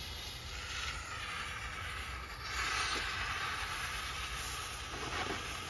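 Handheld firework fountain (Winda Fireworks Freedom Wings) burning and spraying sparks with a steady hiss, getting louder about two and a half seconds in.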